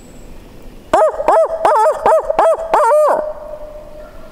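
A man's voiced barred-owl hoot, given as a locator call to make a roosted turkey gobbler gobble back. It is a loud, rapid run of about six wavering hoots lasting about two seconds and ending on a falling note.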